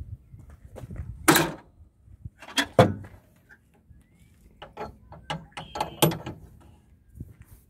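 A John Deere tractor's hood being raised and propped open on its support rod: a series of clunks and metal knocks, the loudest in the first three seconds, then smaller rattles.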